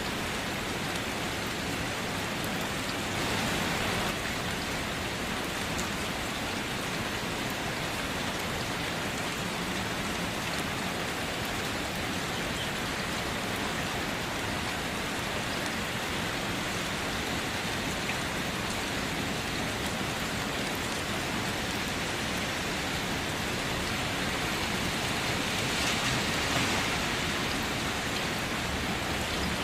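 Steady rain falling, an even hiss of drops that grows slightly heavier twice, briefly about three seconds in and again near the end.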